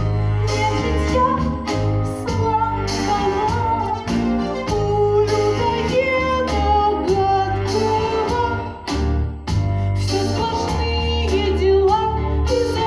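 Music: a song passage with a steady heavy bass and a melody line that slides between notes, dipping briefly about nine seconds in.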